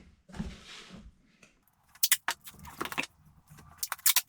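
Adhesive tape pulled off the roll with a short hiss, then a run of sharp crackles and clicks as the tape and the cardboard box are handled.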